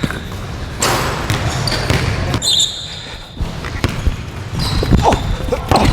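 Basketball being dribbled during a one-on-one game, with a few bounces in the second half and sneakers squeaking on the court in short high squeals.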